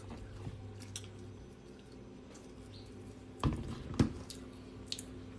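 Faint chewing and small wet mouth sounds close to the microphone, with two low thumps a little past halfway.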